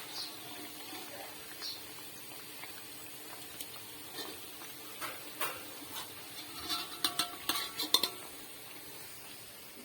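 Kitchenware clinking and scraping: metal utensils knocking against pans or dishes, with a quick run of sharp, briefly ringing clicks between about six and a half and eight seconds in.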